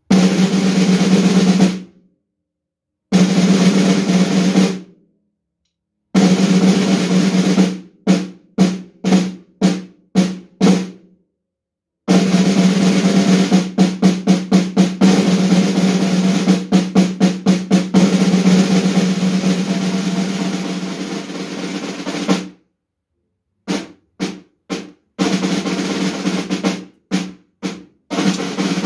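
Snare drum played with sticks. Three rolls of about two seconds each are separated by short gaps. A run of single strokes follows, each one ringing out, then a long roll of about ten seconds with pulsing accents that softens before stopping, and then more single strokes.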